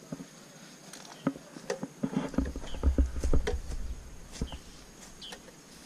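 Footsteps and rustling through dry grass and weeds: irregular crunches and ticks. A low rumble on the microphone comes in about halfway through.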